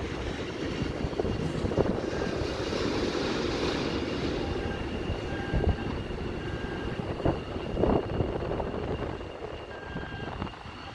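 Airport ambience: a steady low rumble of distant aircraft engines.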